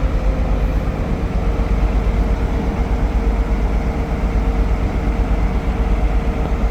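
Caterpillar C13 diesel engine running steadily, with an even low pulsing and a faint steady whine over it. The engine smokes heavily and misfires, which the mechanic puts down to an injector that isn't working.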